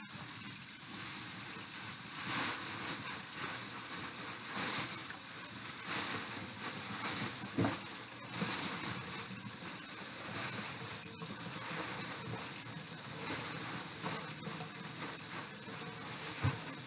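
Kitchen tap running steadily into the sink, with several brief crinkles as the chicken is handled into a plastic bag.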